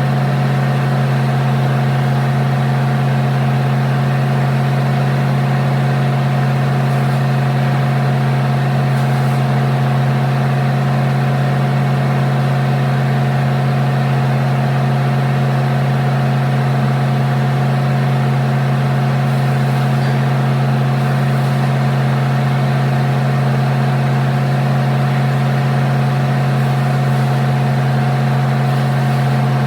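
An engine idling steadily, its hum holding one pitch throughout.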